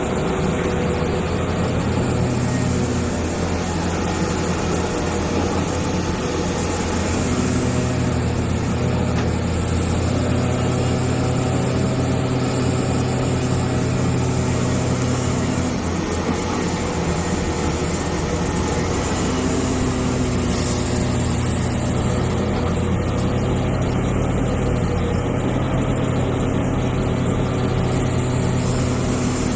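Hitachi EX450 hydraulic excavator's diesel engine running steadily under working load. Its note grows stronger and weaker every several seconds as the machine works through its digging cycles.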